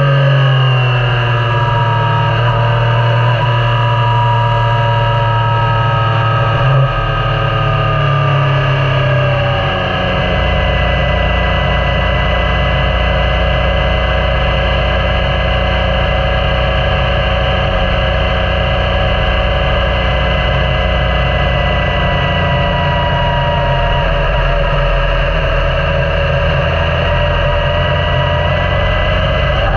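Yamaha Niken motorcycle's three-cylinder engine running on the road, its revs falling over the first ten seconds or so, then held steady for a long stretch, and climbing again at the very end.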